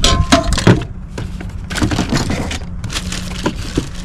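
Packaging being handled: a run of crackles and knocks, loudest in the first second.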